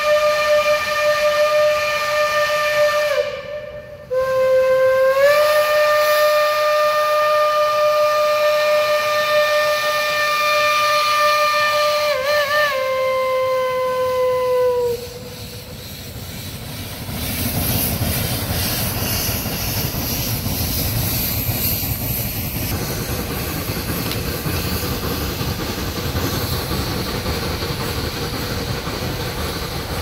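Shay geared steam locomotive's whistle sounding for a road crossing: one long blast, a brief break about three seconds in, then a second long blast that wavers and sags in pitch before it stops about fifteen seconds in. After that comes the locomotive's working exhaust with hissing steam as it climbs past.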